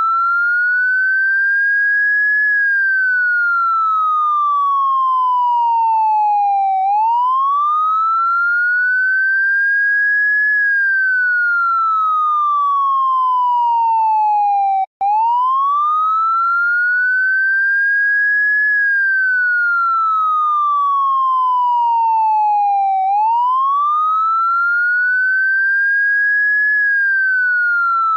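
Vietnamese police electronic siren on a slow wail: one clean tone sweeps up over about three and a half seconds and down over about four and a half, repeating about every eight seconds. There is a very brief break about halfway through.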